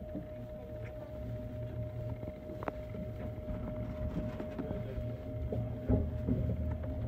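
JR West 321 series electric commuter train running: a low rumble of wheels on track that grows a little louder, under a steady hum. Two sharp clicks come about a third of the way in and again near the end.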